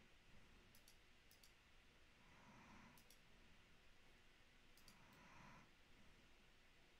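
Near silence with faint computer-mouse clicks, mostly in quick pairs, a few times over the stretch. Soft breathing comes about every two and a half seconds.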